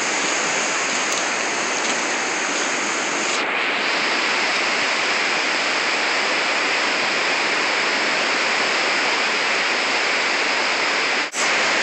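Flash-flood water rushing over the ground, a loud, steady roar of moving water.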